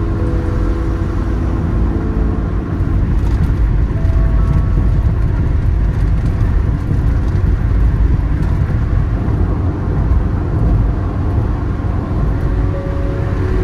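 Car driving at motorway speed: a steady low rumble of tyre and engine noise, heard from inside the cabin.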